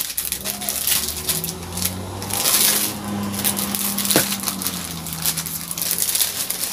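Clear plastic packaging sleeve crinkling and rustling as it is handled and the welcome booklet is worked out of it, with a sharp click a little after four seconds in.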